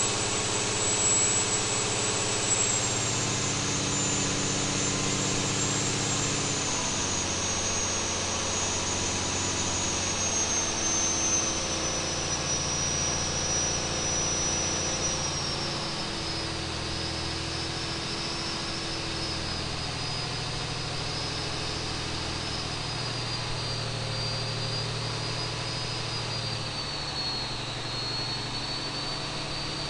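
John Deere 8.1-litre six-cylinder marine diesel running under load on an engine dyno, its speed easing down from about 2000 to about 1500 rpm. A thin high turbocharger whine falls steadily in pitch as the engine slows.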